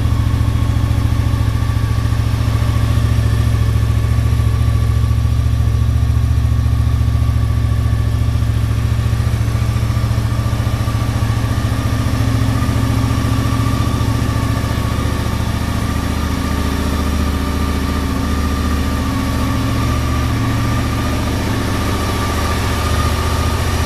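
1986 Honda VFR700 Interceptor's gear-driven-cam V4 engine idling steadily.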